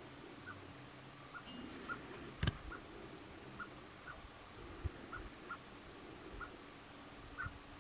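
Short, high call notes from an animal, repeating irregularly about every half second. A single sharp knock comes about two and a half seconds in.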